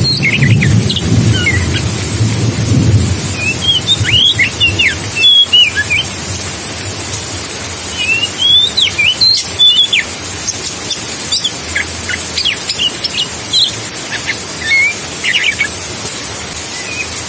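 Oriental magpie-robin (kacer) singing: groups of clear whistled phrases with rising and falling glides, separated by short pauses, over a steady rushing hiss of water. A low rumble sits under the first few seconds.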